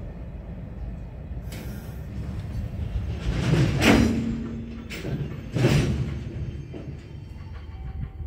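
Empty container flatcars of a freight train rolling slowly past to a stop. A low rumble carries throughout, with two loud, brief hissing surges about four and six seconds in.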